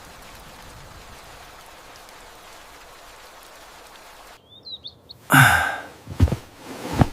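Steady heavy rain that cuts off abruptly about four seconds in, giving way to a few high bird chirps. A loud burst of noise about half a second long follows, then two dull thumps near the end.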